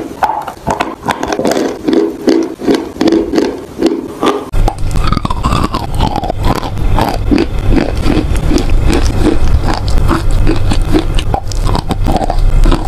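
Chalk being bitten and chewed close to the microphone: repeated crunching and grinding of chalk between teeth. About four and a half seconds in, the sound switches to another recording with a steady low hum under chewing that comes about twice a second.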